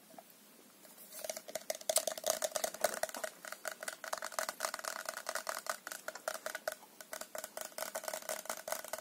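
A mason-jar drinking cup with its straw being handled and stirred: a dense, rapid rattle of clicks with a steady ringing tone, starting about a second in.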